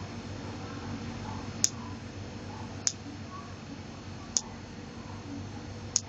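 Four sharp, high clicks, about one and a half seconds apart, over a steady low room hum.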